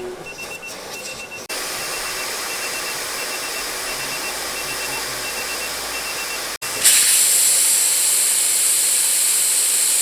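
Compressed air hissing steadily out of a 4WD ute's tyre valve as the tyres are aired down to 25 psi for the tracks. The hiss gets much louder about two-thirds of the way in, and a faint quick beeping, about two a second, runs underneath until then.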